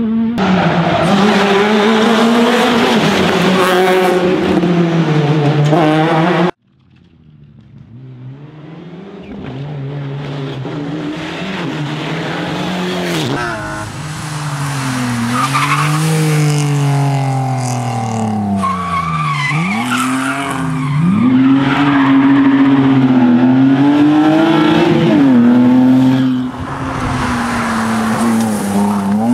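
Rally car engine at full throttle, its note climbing through the gears and dropping on each change, which cuts off abruptly about six seconds in. A BMW E30 rally car then comes in faint and grows louder as it approaches and passes close, its engine climbing in pitch through upshifts and falling off when the throttle is lifted.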